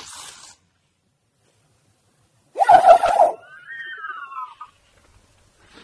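A person making an odd vocal noise: a short, loud, harsh blurt, then a high squeaky call that glides down in pitch.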